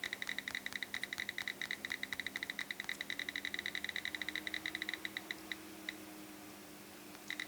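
iPhone picker-wheel ticks as the date-and-time wheel is scrolled: rapid, evenly spaced clicks, about ten a second. They stop about five seconds in, with two lone ticks after, and start again near the end.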